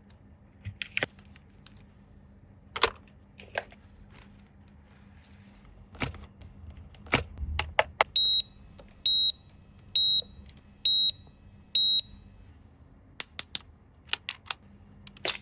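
Five short, high electronic beeps about a second apart, from a toy's beeper, with scattered light clicks and taps of plastic toy parts before and after.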